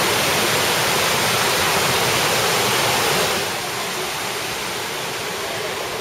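Waterfall water cascading over rock, a steady, even rush. A little past halfway it drops to a quieter, duller rush of running water.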